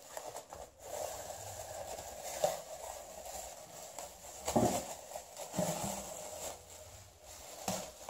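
Thin black plastic bag and plastic film crinkling and rustling as they are handled and pulled off a tray of soap, with a few sharper crackles along the way.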